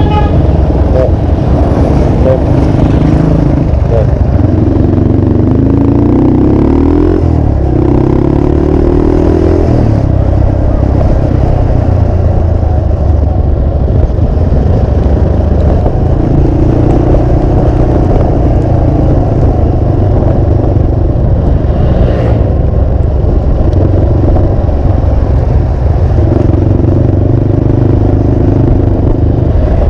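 Motorcycle engine running while riding on light throttle, its pitch rising several times as it accelerates.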